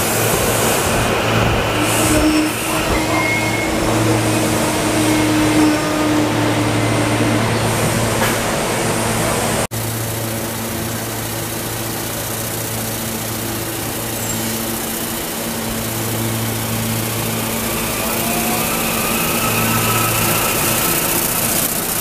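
SEPTA electric multiple-unit commuter train running past close by: a steady hum over the rumble and hiss of wheels on rail, with one sudden break about ten seconds in.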